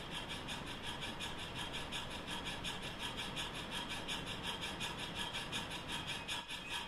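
Model steam train running past, making a quick, steady rhythmic rasping chuff.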